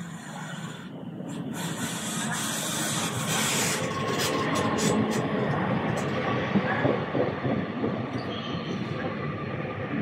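Northern passenger multiple-unit train running into the platform: wheels rumbling on the rails, growing louder from about a second in as the carriages come alongside, with thin steady squealing tones over the rumble.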